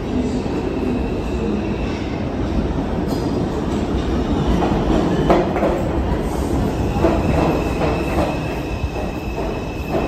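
A Bombardier R142 subway train pulls into the station with a steady low rumble. From about halfway in, its wheels clack over rail joints, and a steady high-pitched squeal sets in as it slows.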